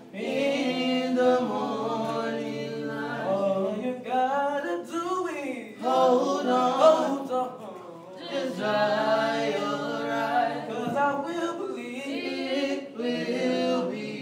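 A small group of young male and female singers singing together a cappella into microphones, in sustained phrases with short breaks between them.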